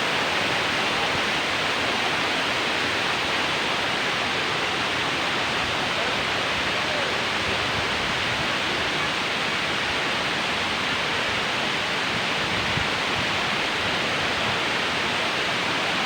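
A waterfall's water falling in a steady, unchanging rush.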